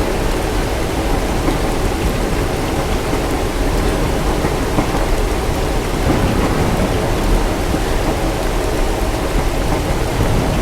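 Steady rain with a continuous low rumble of distant thunder beneath it.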